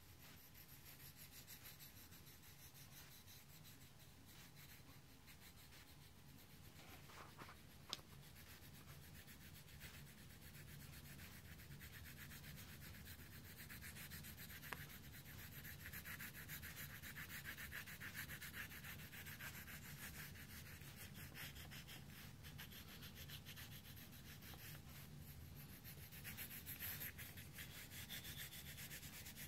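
Pencil scratching on a lined paper pad in quick back-and-forth shading strokes, faint, growing louder about halfway through. Two sharp little ticks, one about eight seconds in and one about fifteen.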